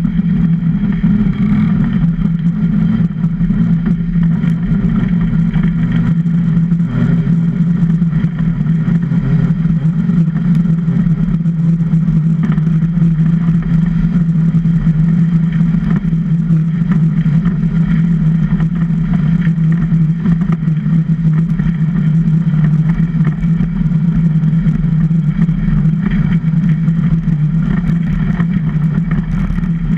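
Steel runners of a Super DN iceboat rumbling over clear ice at speed: a loud, steady low hum with a rough noisy rush over it, unbroken throughout.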